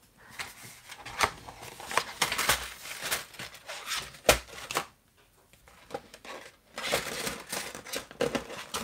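Handling noises of paper pieces and a plastic storage sleeve on a glass craft mat: scattered taps and clicks, a sharp knock about four seconds in, then steady crinkling of the plastic sleeve for the last two seconds.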